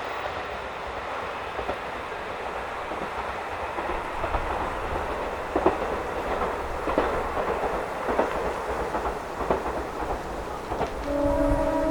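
Steady wind and rain noise over the low rumble of a KiHa 40 diesel railcar running on past, with a few sharp clicks in the middle. A steady tone in two pitches, like a distant horn, begins near the end.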